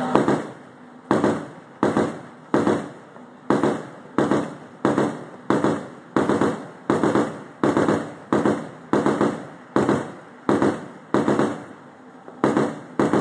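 A ship's gun firing single shots at a steady pace, about one every two-thirds of a second, each report sharp and followed by a short fading echo across the water, with one slightly longer pause near the end.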